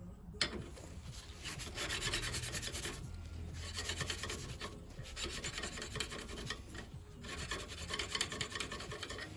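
Gritty rubbing as a stainless steel ball on a lapping tool is turned against a brass fuel-pump valve seat in fine grinding paste, lapping the seat in. It goes in several spells with brief pauses, and there is a small click about half a second in.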